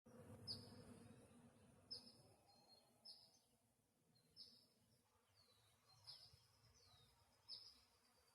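Faint bird calls: a short, sharp high chirp repeated about every second and a half, six times, with a few softer down-slurred notes between. A low hum fades out over the first two seconds.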